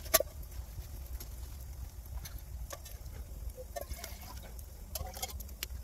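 Sharp metallic clicks and clinks of a metal camp cup and a steel insulated bottle being handled, the loudest just after the start and a short run of them near the end, over a low steady rumble.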